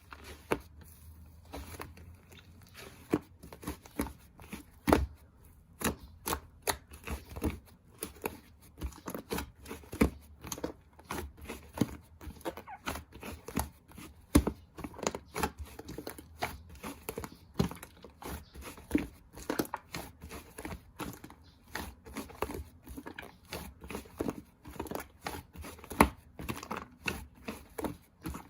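Hands squishing and stretching white slime, making irregular sticky clicks and pops, a few each second.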